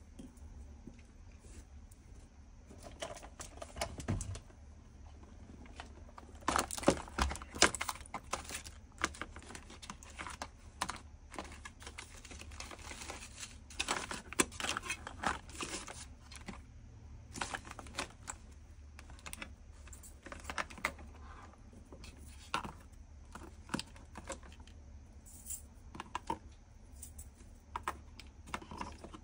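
Small plastic bead bottles clicking and clattering against each other and the clear plastic case as they are picked up and set down in rows, with busier handling about a quarter of the way in and again around the middle.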